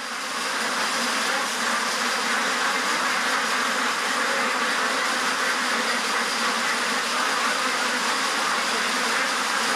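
Steady, hiss-like din of a crowded duck shed, the massed calls of many ducks blending into one even noise.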